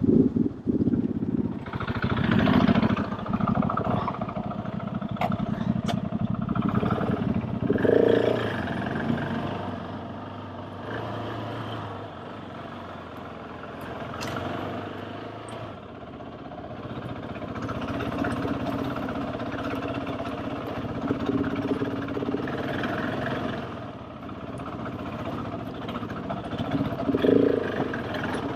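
Big adventure motorcycle engine running under way, the revs rising and falling as the throttle opens and closes. It pulls harder about two seconds in, again about eight seconds in and near the end, and runs more gently in the middle.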